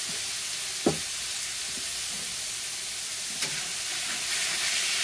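Chopped seasoned chicken breast sizzling in olive oil on a hot flat-top griddle, a steady hiss. Two short taps of a spatula on the griddle, about a second in and about three and a half seconds in, and the sizzle grows a little louder near the end as the meat is stirred.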